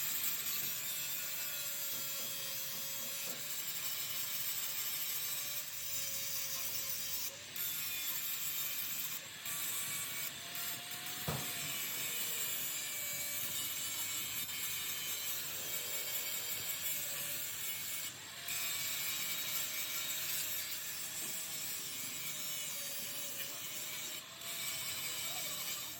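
A power tool working metal: a steady rasping hiss over a motor tone that wavers in pitch. The sound drops out briefly several times, and there is one sharp knock about eleven seconds in.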